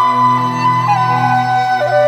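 Slow, calm Chinese five-tone (wuyin) therapy music: a melody of long held notes stepping downward over a steady low drone.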